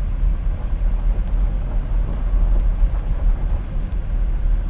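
Steady low rumble of a car in motion, heard from inside the cabin: engine and road noise.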